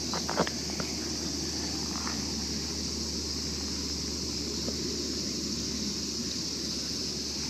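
Steady outdoor background: an even high hiss and a low hum, with a few light clicks in the first half second.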